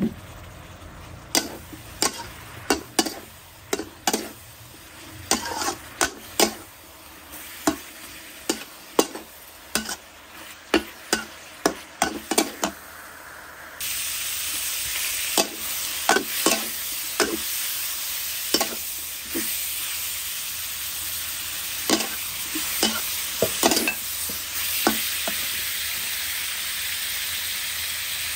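Pork stir-frying in a metal wok: a metal spatula scrapes and knocks against the pan many times over a steady sizzle. The sizzle grows much louder about halfway through.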